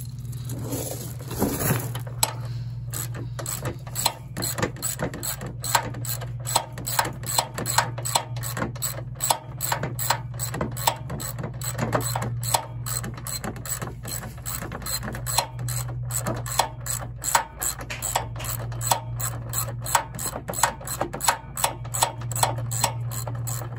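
Hand socket ratchet clicking in a steady run of quick clicks, a few a second, as a bolt is turned. A steady low hum runs underneath.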